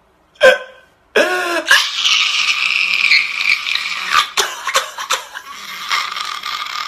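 A man wailing in loud, high-pitched crying: a short sob about half a second in, then a long wail that rises and holds, broken by a few catches of breath.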